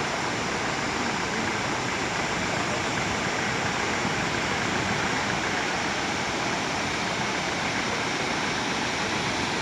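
Steady, unbroken rush of a large waterfall.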